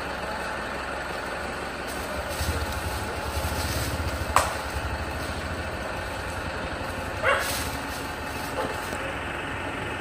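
Tata 407 minibus's diesel engine idling with a steady low rumble that swells for a few seconds about two seconds in. A sharp click and a short squeak come partway through.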